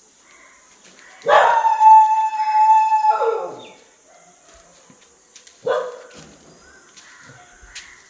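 A dog barking and howling: one loud drawn-out howl held at a steady pitch for nearly two seconds, starting about a second in and ending in a rough bark, then a single shorter bark near six seconds.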